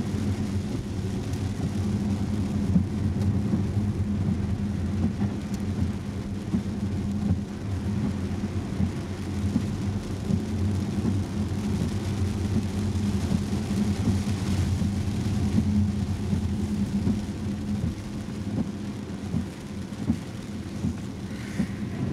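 Inside the cabin of a Volvo S90 driving in heavy rain: a steady low rumble of tyres on the wet road, with rain on the car.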